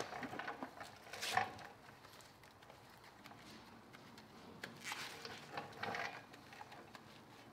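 A few brief, faint splashes and scrubbing sounds as a small brush is dipped in a bucket of soapy wash water and worked around a car wheel's lug nuts and face.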